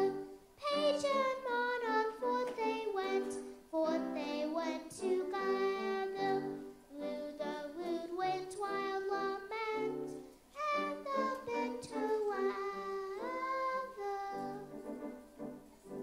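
A boy singing solo into a handheld microphone: a melody in short phrases with long held notes, stopping shortly before the end.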